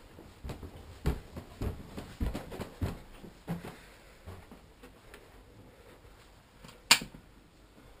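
Footsteps climbing carpeted stairs, a dull thud about every half second, then softer steps on the landing. One sharp click near the end.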